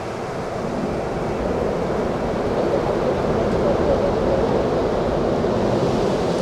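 Jet airliner engine noise: a steady rushing rumble with no clear whine, growing slowly louder.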